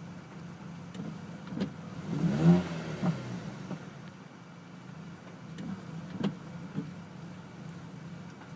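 2002 Ford SVT Focus's 2.0-litre four-cylinder engine idling roughly, a rough idle that new spark plugs have not cured. About two seconds in the engine is briefly revved, rising and falling in pitch, and a few short clicks come through.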